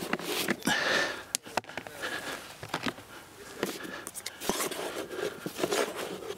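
Scraping, rustling and light knocks of plastic bait tubs and buckets being handled as joker is added to a groundbait mix, in short irregular bursts.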